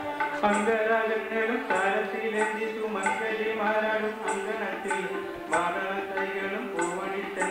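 Live stage music from a small Indian ensemble: held keyboard notes that change every second or so, over hand-drum percussion with crisp high ticks on a steady beat.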